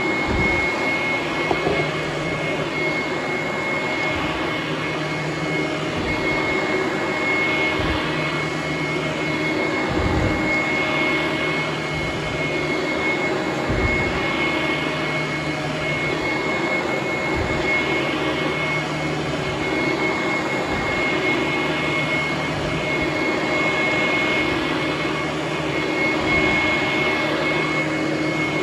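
Vacuum cleaner running on carpet, its motor giving a steady high whine. The sound swells and fades every couple of seconds as the nozzle is pushed back and forth, with a few brief low bumps.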